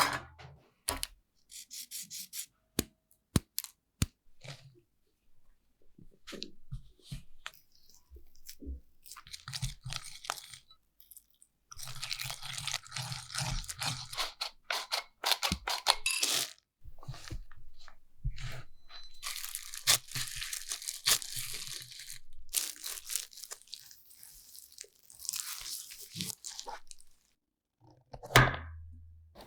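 Kitchen handling noises while making cookie dough: scattered sharp clicks and knocks at first, then long stretches of scraping or rustling, with a pause of about a second before each.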